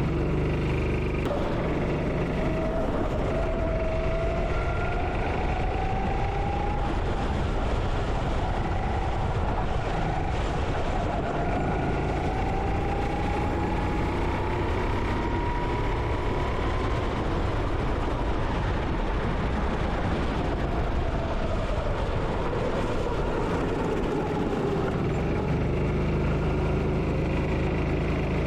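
Go-kart engine heard onboard, its pitch climbing slowly as the kart accelerates, dropping as it slows about two-thirds of the way through, then climbing again near the end, over a steady rushing noise.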